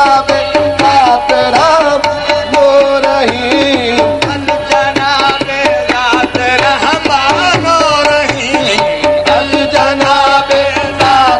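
Devotional singing by a wavering melodic voice over a steady held drone, with frequent percussion strokes running under it.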